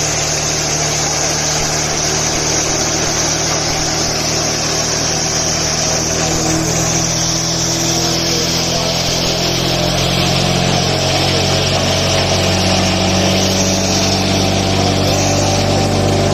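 400 series chaff cutter running as a grain crusher, a loud steady machine drone with a high hiss over it. Its hum shifts in pitch about halfway through and grows a little louder and fuller toward the end.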